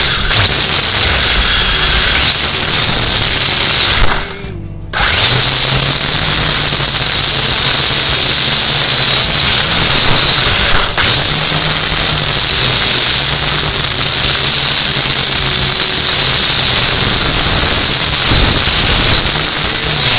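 Small electric motors and propellers of a UDI 818A toy quadcopter whining loudly, heard through its own onboard camera. The pitch wavers up and down with the throttle, and the sound drops away for about a second roughly four seconds in, with a shorter dip near the middle.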